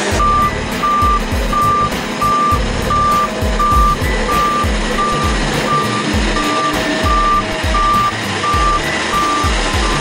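Reversing alarm of a tandem road roller beeping, a single high tone about twice a second, over background music with a steady beat.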